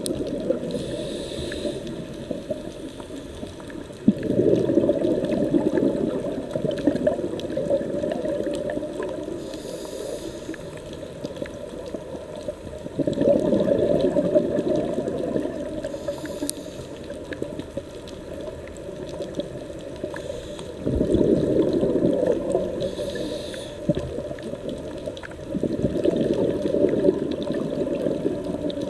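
Scuba diver breathing through a regulator, heard underwater: a short faint hiss at each inhalation, then a few seconds of low bubbling as the exhaled air streams out of the regulator. Four or five such breaths, a few seconds apart.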